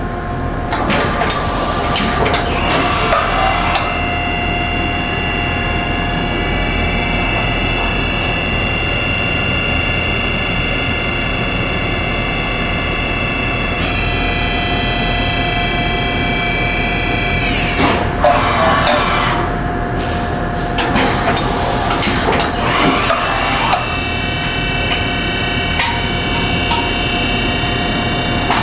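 Okuma & Howa Millac 438V CNC vertical machining center running a short program. The spindle whines at a steady pitch, shifts up about halfway through, winds down around two-thirds of the way in, then spins up again near the end, with several short noisy bursts in between.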